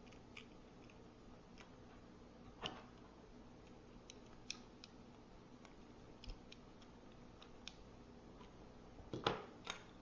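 Faint scattered small metallic clicks and taps of a multi-tool's screwdriver and a wire being worked against the terminal screw of an electrical receptacle, with a few louder knocks near the end.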